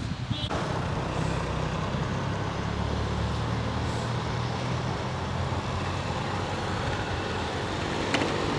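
Street traffic: small motor scooter engines running as they ride past, over a steady traffic hum. A sharp click sounds about eight seconds in.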